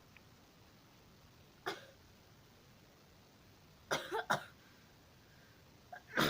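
A person sneezing in short, sharp bursts set off by a nasal swab tickling the nose: one about two seconds in, a quick pair around four seconds, and the loudest near the end.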